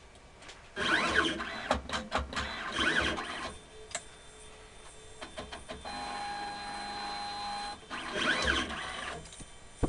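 Motors of an automatic laboratory analyzer's robotic pipetting arm running as the arm moves the tube, in several short runs whose whine rises and falls, with clicks between them. A steadier whine holds for about two seconds past the middle.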